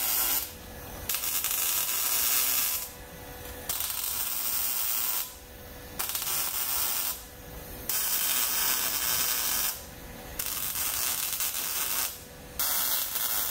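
Arc welding on the truck's old steel radiator support, in about seven short runs of one to two seconds each with brief pauses between them.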